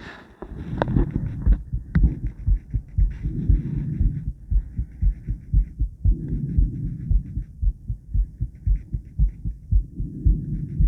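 A woman's heartbeat heard through a chest-held recording: a fast, even run of deep lub-dub thumps. A soft rushing swell rises every three to four seconds behind the beats.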